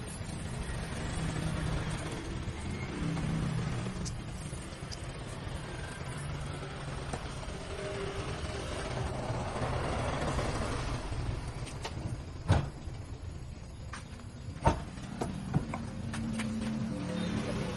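A motor running steadily, with three sharp metallic knocks in the second half.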